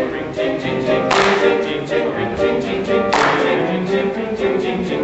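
Men's vocal ensemble singing in harmony, with a bright splash-like hit about every two seconds and quick ticks keeping a steady beat between.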